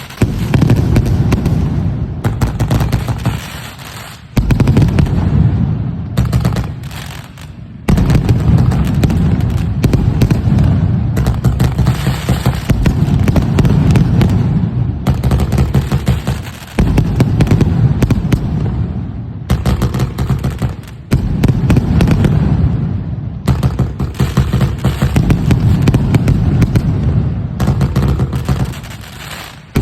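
Intravenous brand Cuerno de Chivo 100s salute firecracker string going off: loud sharp bangs in rapid, machine-gun-like volleys, broken by a few brief lulls.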